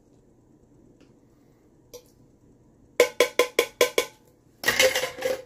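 A spoon knocking about seven times in quick succession against a tin can, then scraping inside it, as canned tomatoes are spooned out.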